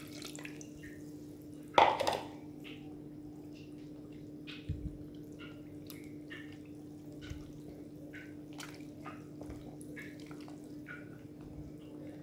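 A spoon stirring wet rice-flour batter in a plastic bowl, with light, irregular ticks and wet dripping sounds over a steady low hum. One louder knock comes about two seconds in.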